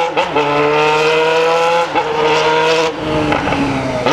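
Yamaha XJ6's 600 cc inline-four running loud through a straight-through open pipe with no muffler, holding a steady note with two brief dips. About three seconds in the throttle closes and the steady note gives way to a rougher off-throttle sound.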